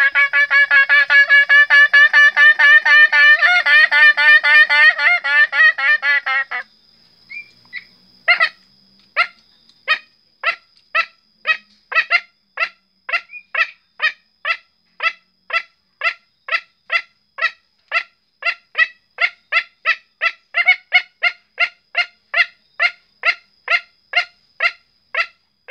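A man imitating junglefowl calls with his voice alone, as a hunter's lure. First comes a rapid, continuous pulsing call lasting about six seconds. After a short pause comes a long series of short, evenly spaced clucks, about two to three a second.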